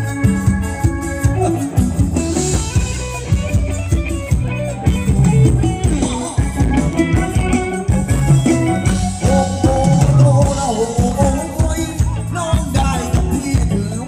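Live Thai ramwong dance music from a band over a PA system, with a steady drum beat.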